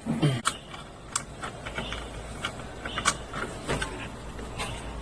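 Scattered sharp clicks and light taps from handling the opened LCD TV and its cables while it is readied for a power-on test, over a low steady hum.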